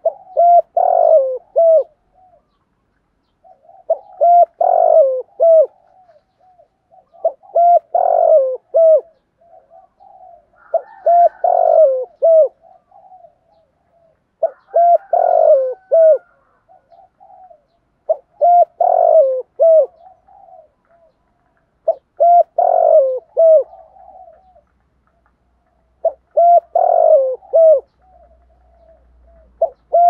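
Spotted dove cooing: a short phrase of several coos, repeated eight times at about four-second intervals.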